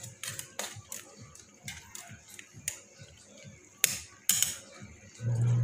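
Metal spatula scraping and clinking against a metal pan while stirring a thick coconut-milk stew, in irregular scrapes with two louder clanks at about four and four and a half seconds.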